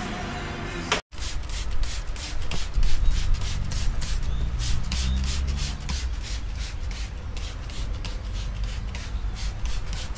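Hand trigger spray bottle squirting leak-test liquid onto a car air-conditioner coil, in repeated short hissy squirts, several a second, starting about a second in. A steady low rumble runs underneath.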